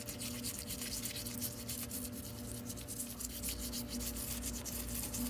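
Small bristle brush scrubbing a die-cast metal toy jet to lift paint softened by citrus stripper, with quick repeated scratchy strokes. A faint steady hum runs underneath.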